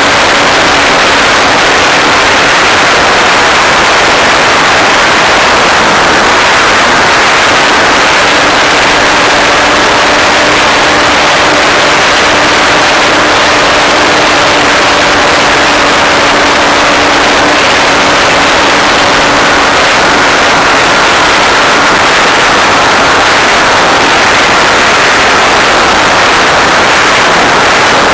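Model jet in flight heard from an onboard camera: a loud, steady rush of air noise over the microphone with a faint steady whine from its power unit.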